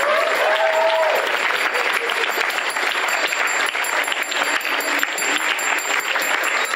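Audience applauding steadily, with a voice rising briefly over it at the start.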